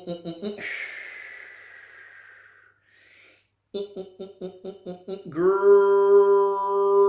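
Intro music: a fast pulsing pitched figure, a falling shimmering whoosh, the pulsing figure again, then a rich tone that swoops up about five seconds in and holds steady.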